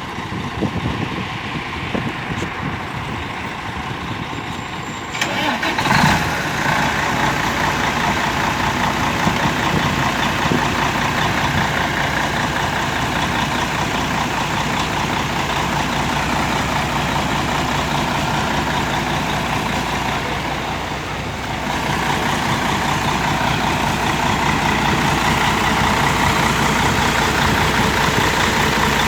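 Mercedes-Benz O-400 RSD coach's diesel engine running loud. It steps up sharply about five seconds in with a brief knock, then runs steadily and rises again a little after twenty seconds.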